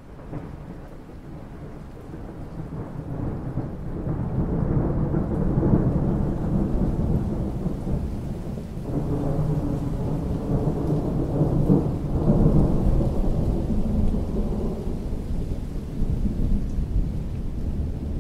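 Rolling thunder: a deep rumble that builds over the first few seconds, peaks about six seconds in, dips, then rolls up again about nine seconds in and slowly eases off.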